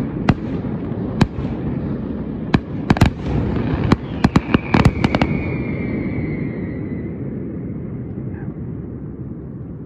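Fireworks display: aerial shells bursting in sharp bangs over a continuous low rumble. The bangs come thickest between about three and five seconds in, with a falling whistle among them. Then the bangs stop and the rumble fades away.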